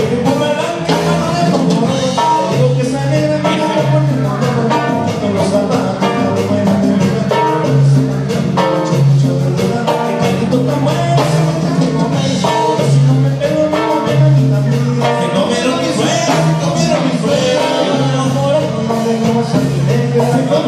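Live band playing dance music, with a singer over a steady, repeating bass line.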